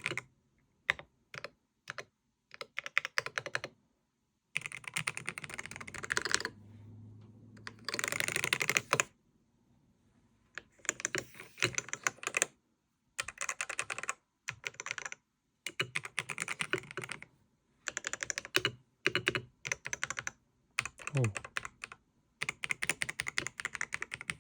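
Typing on a Wooting 80HE Hall-effect keyboard with Geon Raw HE magnetic switches and Glorious Polychroma RGB keycaps. The key clacks come in rapid bursts, some dense and rattling, with short pauses between them.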